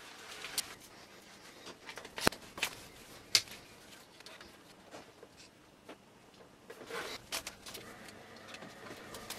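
Hard plastic parts of a tricopter frame being handled and fitted together: a few sharp clicks and taps, the loudest two to three seconds in, then softer fumbling and rustling about seven seconds in.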